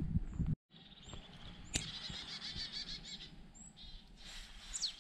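Footsteps on the forest floor that cut off abruptly about half a second in, then songbirds chirping and twittering, with repeated short high chirps and two spells of warbling song.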